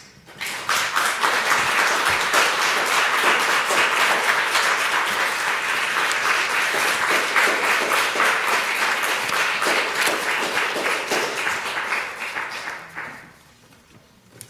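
Congregation applauding with many hands clapping. The clapping starts about half a second in, holds steady, and dies away about a second and a half before the end.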